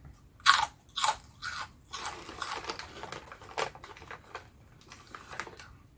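Close-up crunching and chewing of puffed corn crisps: a few loud crunches in the first second and a half, then steadier, softer chewing.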